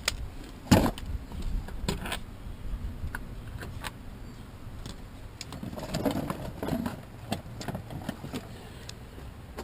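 Scattered clicks, knocks and small rattles of a screwdriver and screws as the two screws holding a door trim panel are taken out. There is a sharp knock just under a second in and a cluster of rattling knocks about six to seven seconds in.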